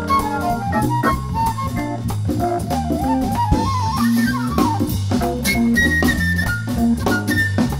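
Soul-jazz organ combo playing live: Hammond organ with a steady bass line and swinging drum kit, a quick melodic line stepping up and down over them.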